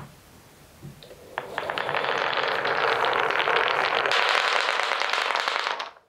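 A long line of wooden balls rolling and clattering through a wooden block marble run: a few single knocks, then from about a second and a half in a dense rattle of many small knocks that stops suddenly near the end.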